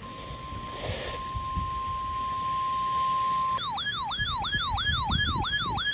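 A steady, single-pitched alert tone near 1 kHz, the weather-radio warning alarm tone that precedes a National Weather Service warning broadcast. Past halfway it gives way to a fast, yelping siren sweep, about three to four rises and falls a second.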